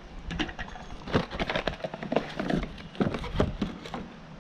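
Irregular knocks and clicks of plastic bottles and trays being handled and set down on a small table.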